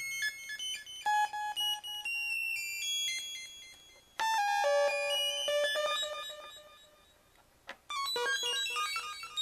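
DIY STM32F4 Discovery board synthesizer playing randomly pitched sawtooth notes from an anti-aliased minBLEP oscillator, some of them very high, each repeated by a feedback delay that echoes and dies away. New flurries of notes start about a second in, around four seconds in and near the end, with a fade to near quiet and a single click in between.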